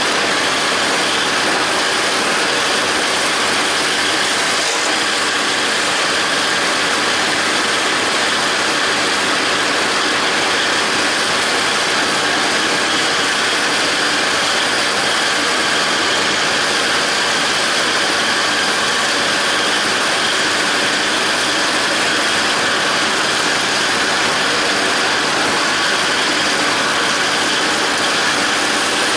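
John Deere 5320 tractor's diesel engine running steadily under load, with the PTO-driven John Deere 270 disc mower's spinning discs and gear train running as it cuts grass hay.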